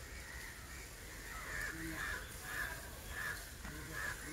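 Birds calling over and over in short calls, about two a second, over a low background rumble.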